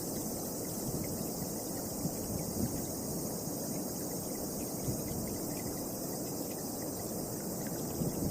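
Wind buffeting the microphone in a low, unsteady rumble, with a steady high-pitched chorus of crickets underneath.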